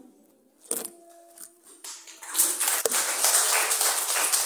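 A congregation clapping, starting about two seconds in and keeping up steadily, after a single knock a little under a second in.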